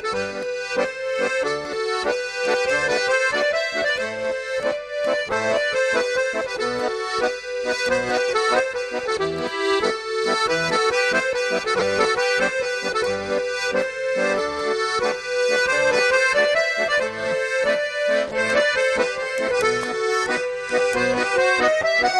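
Background music led by an accordion, playing a quick, busy melody without pause.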